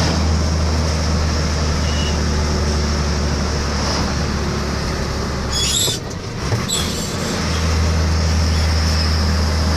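Engine and road noise of a vehicle driving along a paved road, heard from inside the cab as a steady low drone. About six seconds in the engine drone drops away for a second or so, with a few short knocks, then comes back.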